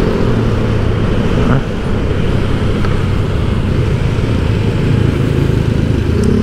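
Honda Genio scooter's 110 cc single-cylinder engine running steadily while riding, a low, even hum with road noise.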